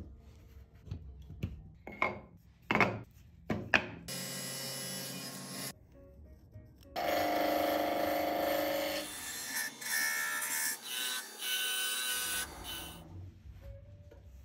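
Woodshop sounds in quick succession: about four short, sharp scraping strokes, then a steady machine run, then a wood lathe spinning a blank while a turning tool cuts it in several long passes.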